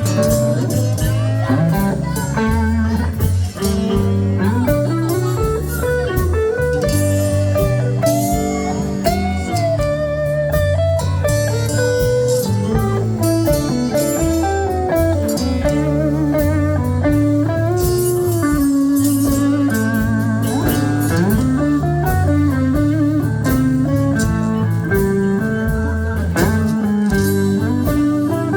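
Blues band playing an instrumental break: a lead guitar solo full of gliding, bent notes over a steady bass line and drums.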